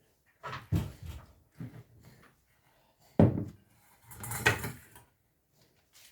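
Kitchen clatter of containers and utensils being handled and set down: a few knocks, one sharp loud knock about three seconds in, then a short scraping clatter.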